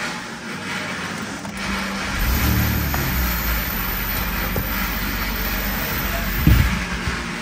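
A BMW E46's engine starts about two seconds in and runs with a steady low rumble. It gives one brief louder surge about six and a half seconds in, after the car has sat unused for a long time.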